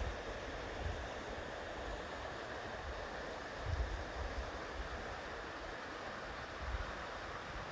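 River water flowing in a steady rush, with low rumbles of wind on the microphone swelling three times.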